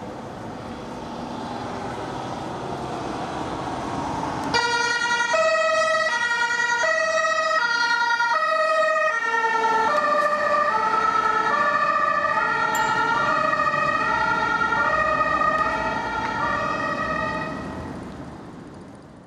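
Ambulance approaching with engine and tyre noise, then about four and a half seconds in its German two-tone siren (Martinshorn) switches on. The siren alternates evenly between a high and a low tone, drops slightly in pitch about halfway through and fades away near the end.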